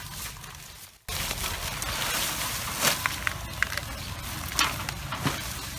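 Dry bamboo leaves and straw rustling and crunching as a one-week-old baby elephant shifts and pushes itself up in its bedding, with several sharp crackles. There are a few short high chirps about three seconds in, and a brief drop-out about a second in.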